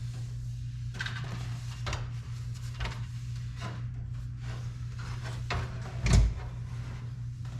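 Scattered clicks and knocks of parts and tools being handled during dashboard work, with one louder thump about six seconds in, over a steady low hum.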